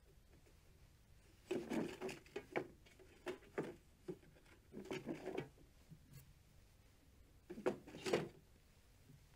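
Stones being handled and set into a clear jar, knocking and scraping against pebbles and the jar wall in four short bursts of clatter.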